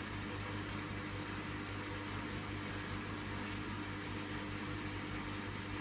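Hoover washing machine running its cycle: a steady motor hum with an even low drone, unchanging in level.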